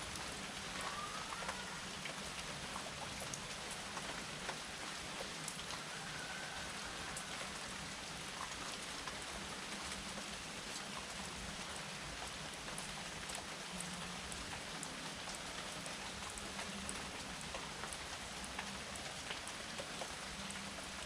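Steady rain falling, with individual drops ticking on a surface.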